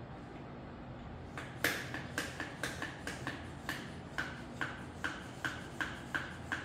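A run of about fifteen sharp clicks, two to three a second and slightly uneven, from hand work on a folding electric bike; it begins about a second and a half in.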